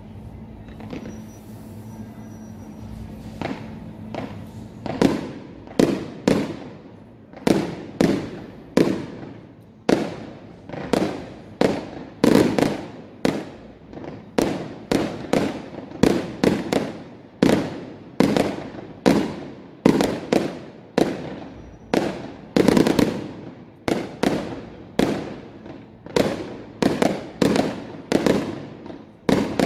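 Fireworks display: aerial shells bursting in a rapid series of sharp bangs, a little more than one a second, each with an echoing tail. The bangs start about five seconds in, after a quieter stretch.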